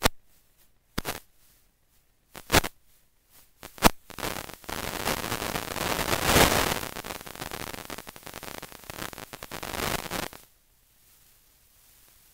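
A few sharp clicks, then several seconds of crackling noise that stops suddenly.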